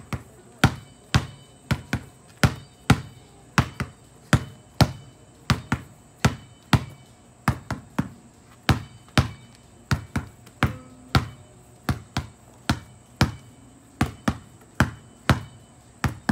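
A basketball dribbled hard on an asphalt driveway: a steady run of sharp bounces, about two a second.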